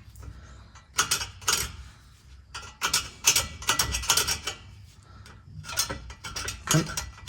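Metal hand tools clinking and rattling in several short bursts while being rummaged through in search of a marker.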